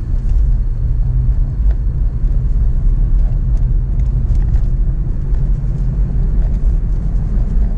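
Car driving at low speed, heard from inside the cabin: a steady low rumble of engine and road noise.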